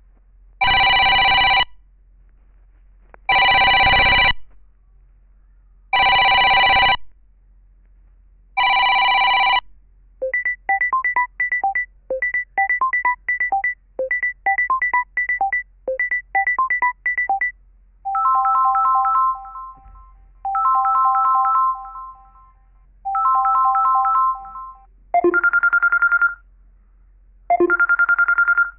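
Samsung Galaxy A20s ringtones playing from the phone's speaker, in changing electronic patterns. First come four one-second chimes about two and a half seconds apart. Then a run of quick, short beeps lasts about seven seconds, followed by three held three-note chords and two shorter notes near the end.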